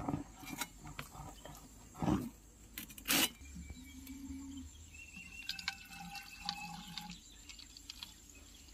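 Coconut palm toddy trickling and dripping into a bottle as it is collected, with a few sharp knocks from handling about two and three seconds in.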